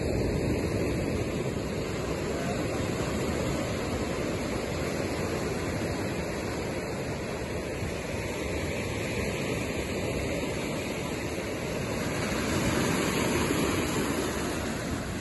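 Surf breaking and washing over a cobble beach: a steady rushing that swells a little about twelve seconds in.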